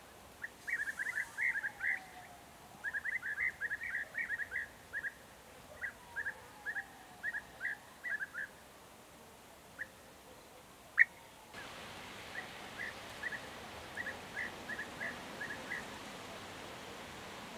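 European bee-eater giving short, repeated calls in quick runs, then fewer and more spaced, with a later, fainter run near the end. A single sharp click about eleven seconds in is the loudest sound.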